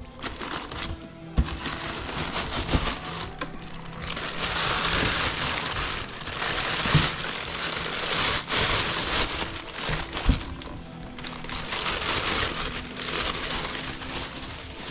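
Packaging being crinkled and handled as a boxed collectible helmet is unpacked, with a few sharp clicks and knocks among the rustling, over quiet background music.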